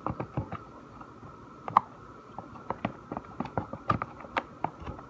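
Glue slime being stirred with a stick in a container as the contact-solution activator makes it set: irregular small sticky clicks, taps and squelches.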